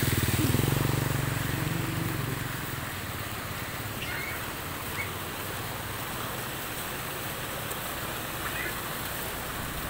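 Floodwater rushing steadily, an even noise without a pulse. In roughly the first two seconds a low engine hum is also heard, fading out.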